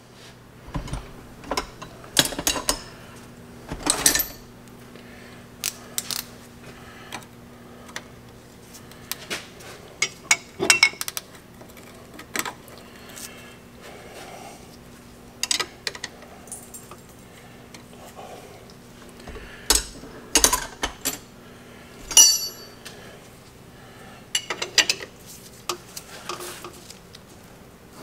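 Sockets and hand tools clinking and clanking against steel at a truck's front wheel hub while the wheel bearing's mounting bolts are being worked on: scattered single metallic knocks, a few of them ringing sharply, over a steady low hum.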